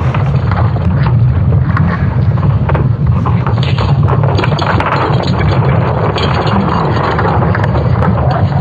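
A space-sound sonification presented as the sound of planet Earth: a steady, deep, noisy rumble with scattered crackles throughout.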